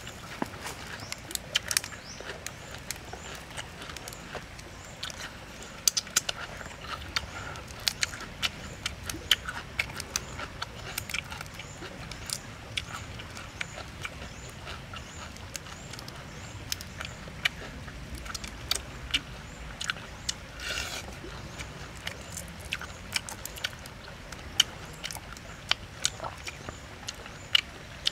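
Chewing and lip-smacking of a person eating cooked shrimp, with many sharp clicks and crackles of shrimp shell being cracked and peeled by hand.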